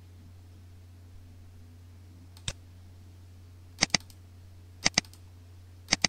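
Computer mouse button clicking: one single click, then three double-clicks about a second apart, opening folders in a file dialog. A steady low hum runs underneath.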